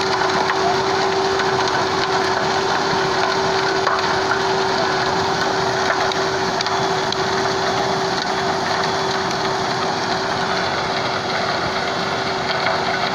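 Heavy road-construction machinery running steadily: a constant engine hum under a continuous grinding, crushing noise.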